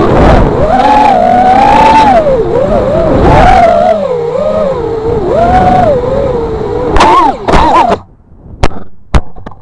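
Realacc X210 racing quadcopter's brushless motors and propellers whining as heard from its onboard camera, the pitch swooping up and down with throttle. Two short loud flares about seven seconds in, then the motors stop suddenly at about eight seconds, followed by a few sharp knocks.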